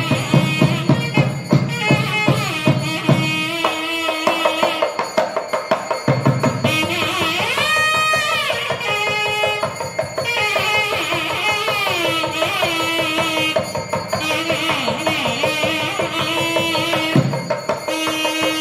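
Nadaswaram playing an ornamented Carnatic melody full of sliding notes, with a long rising and falling glide near the middle, accompanied by thavil drum strokes. The drum is busy for the first few seconds, drops out for most of the middle, and comes back near the end.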